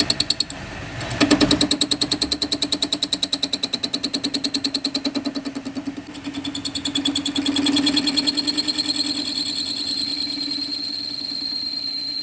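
A workshop machine starts about a second in and runs with a fast, even pulsing beat and a steady high whine. About halfway through, the pulse smooths out and the whine carries on steadily.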